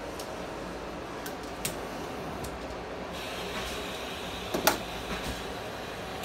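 A glassblowing bench torch's gas hissing as it is opened and lit, the hiss growing fuller about three seconds in. Light clicks of tools being handled come before it, and a single sharp knock comes a little later.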